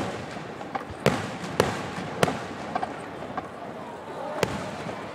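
Aerial firework shells bursting in sharp bangs: four in the first two and a half seconds, and another about four and a half seconds in.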